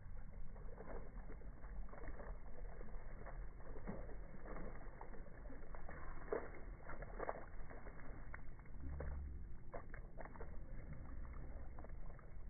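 A small child's rain boots splashing and stomping through a shallow puddle on pavement: irregular short splashes, about one or two a second.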